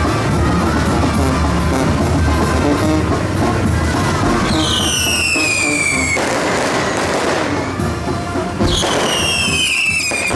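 Fireworks on a burning pyrotechnic castillo tower: two falling whistles about four seconds apart, each lasting over a second, with hissing and crackling between them, mixed with music.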